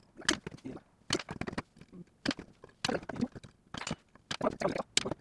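Wire cutters snipping through the nails of a nail bat, heard as a series of sharp snaps about two a second, as the protruding nails are trimmed down.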